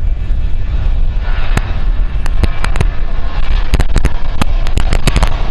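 Jet aircraft engine noise: a steady low rumble, with a hiss that builds from about a second in. Over it comes a rapid, irregular flurry of sharp clicks that grows denser toward the end.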